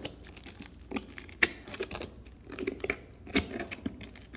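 Sandpaper crinkling and rustling as it is folded and wrapped around a flat wooden stir-stick block, with irregular light clicks and taps.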